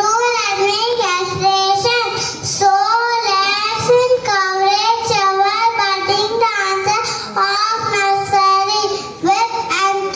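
Children singing a melody, with long held notes that bend up and down in a continuous stream.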